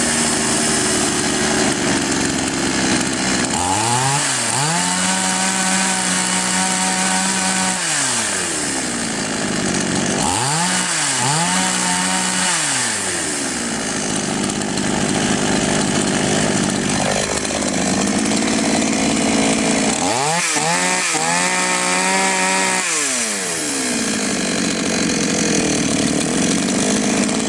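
Chinese copy of a Stihl MS660 chainsaw's two-stroke engine idling, revved up three times. Each rev is held for a few seconds and then drops back to idle. With the carburettor's mixture screw opened a further half turn, the saw now takes throttle without stalling.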